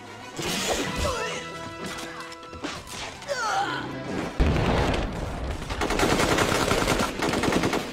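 Action-film soundtrack: dramatic music with sweeping glides, then a sudden loud bang about halfway through. It is followed by sustained rapid automatic gunfire from several guns.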